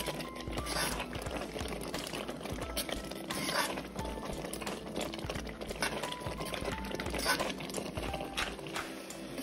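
Wet grated-carrot halwa bubbling in a pot while a steel slotted spoon stirs and scrapes through it, with irregular squelching, scraping strokes. The mixture is cooking down after sugar has been stirred in.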